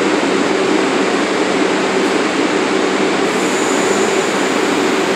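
Stationary New York City subway train of R62A cars standing at the platform with its doors open, giving a loud, steady rushing hum from its running equipment.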